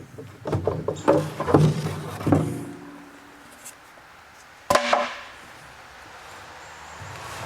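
Wooden 2x6 tongue-and-groove boards knocking and clattering against each other as they are handled, with a short ringing after each knock. A single sharp wooden knock comes a little before five seconds in.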